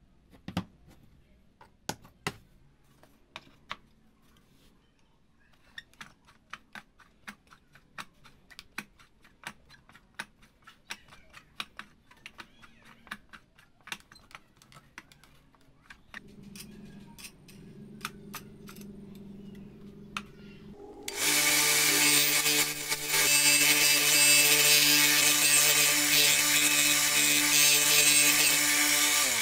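Sharp clicks and taps of teak wheel blanks being handled, then a bench disc sander running. From about two-thirds in there is a much louder, steady grinding as the wheel is turned on a centre-pin jig against the sanding disc to sand it round.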